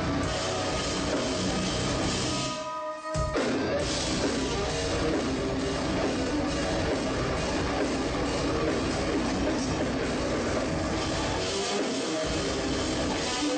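Metalcore band playing at full volume with distorted guitars and drum kit. About three seconds in the band drops out briefly, then crashes back in with a sharp hit.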